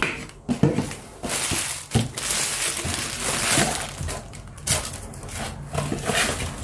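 A lid pressed onto a stainless steel canister with a couple of knocks, then a cardboard box and foil-wrapped tea sachets being handled, rustling and crinkling for a few seconds.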